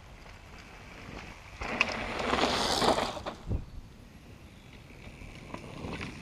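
Propain Tyee mountain bike riding over a trail: low tyre and trail noise, with a loud rushing burst of noise about one and a half seconds in that lasts over a second before dying back down.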